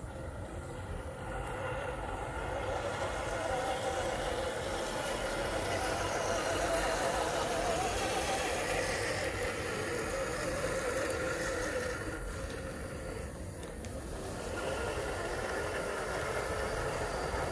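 Electric drive motors and gearboxes of 1/10-scale RC crawler trucks whining as they crawl through grass, the pitch wavering up and down with the throttle.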